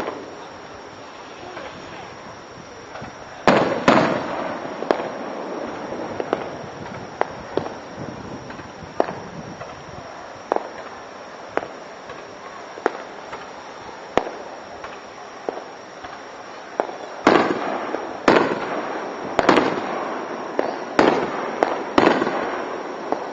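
Aerial fireworks bursting: two loud booms about three and a half seconds in, then scattered single bangs, then a quick run of loud bursts in the last six seconds, each trailing off in a rolling echo.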